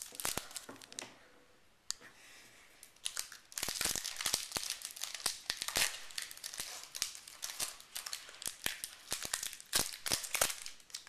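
Wrapper of a 1991 Pinnacle football card pack crinkling and tearing as it is ripped open by hand. It is quieter at first, then a dense run of sharp crackles starts about three and a half seconds in.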